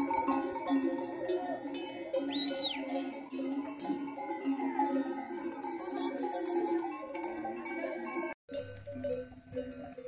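Many sheep bells clanking at once as a flock grazes, a dense jangle of overlapping tones at different pitches. A short high whistle sounds about two and a half seconds in. The bells break off briefly about eight seconds in, then go on.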